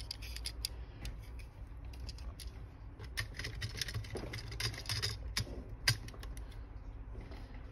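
Hard plastic parts of a Bandai MG Acguy Gundam model clicking and tapping as the model is handled and its head is pressed and turned: irregular clusters of small clicks, with a sharper click about six seconds in.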